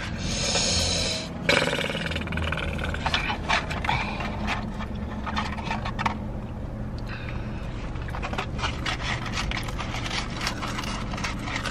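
Eating noises: rustling of fast-food paper packaging and close-up chewing of McDonald's fries. A brief crinkling hiss at the start, then many small clicks and crackles over a steady low hum.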